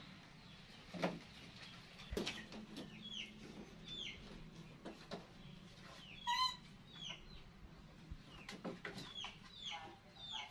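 Short, high peeping calls that fall in pitch, repeated about once a second, with one longer wavering call about six seconds in. Scattered sharp knocks and taps.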